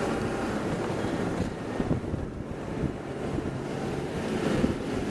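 Steady wind rumble buffeting an outdoor camera microphone, with a faint low hum underneath.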